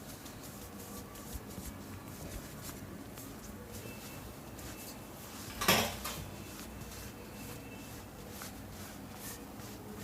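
Cracking during a barber's head and neck massage: faint scattered clicks, with one sharp, loud crack a little past halfway.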